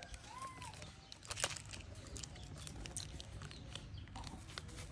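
A baby monkey gives one short squeak that rises and falls, about half a second in. Around it are scattered small clicks and crinkles of handling and chewing among snack wrappers, with a sharper click about a second and a half in.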